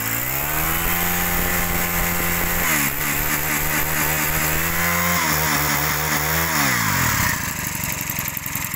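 Honda GX22 four-stroke brush-cutter engine revved by hand at the carburettor throttle. It climbs from idle over the first second and holds high, sags and wavers for a couple of seconds midway, picks up again, then drops back to idle about seven seconds in. Its running sound is light and soft.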